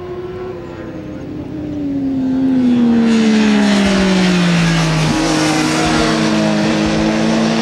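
Triumph Daytona 675's three-cylinder engine running on a racetrack. It gets louder about two seconds in while its revs fall steadily for several seconds, then it levels off and holds a steadier note.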